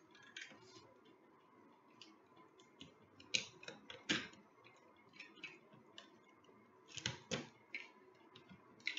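Fingers picking and pulling at a cardboard toy box: scattered light clicks and scratches of the packaging, with a few sharper clicks a little past three seconds, around four, and twice around seven seconds in.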